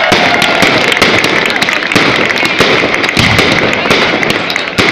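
Fireworks display: a dense, unbroken run of crackling pops and bangs as many shells and crackle stars burst in quick succession.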